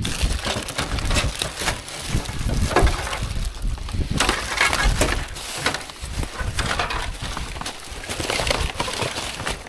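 Rubbish being rummaged through by gloved hands: plastic bags and packaging rustling and crinkling, with a continuous clatter of cardboard, wood scraps and plastic pieces knocking together as they are shifted.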